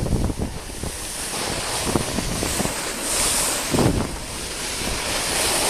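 Wind buffeting the microphone while snowboarding downhill, with the hiss of the board sliding and scraping over snow, swelling about halfway through.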